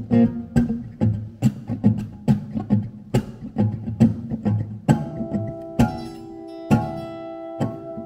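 Improvised guitar playing: quick sharp percussive strikes over low plucked notes, then about five seconds in, held notes ring on with only a few strikes.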